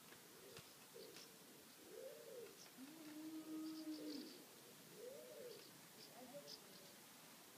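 Faint pigeon cooing: a slow series of soft coos, with faint chirps of small birds.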